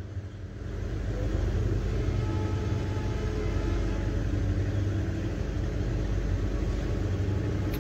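Steady low rumble of a running engine that builds up over the first second and then holds even.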